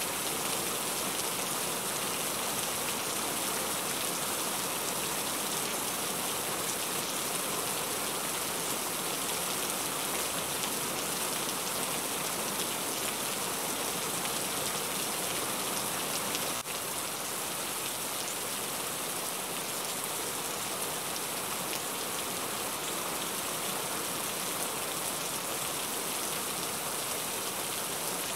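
Steady rain falling on a car's roof and windshield, heard from inside the cabin. The rain noise is even throughout, with a brief break a little past the middle.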